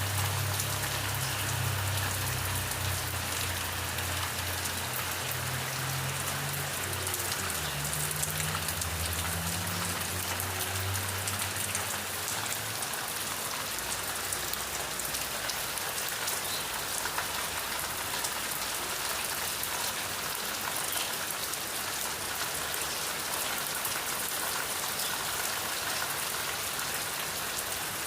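Steady rain falling, an even hiss of drops on surfaces. A low hum sits under it for the first twelve seconds or so, then fades away.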